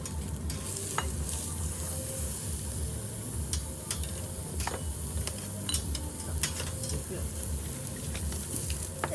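Meat sizzling on a hot grill: a steady hiss with scattered sharp clicks of utensils.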